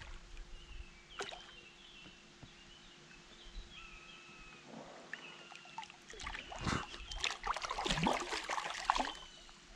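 Water splashing and sloshing right beside a float tube as a released wels catfish swims off past the angler's fins. The splashing is irregular and grows louder in the last few seconds.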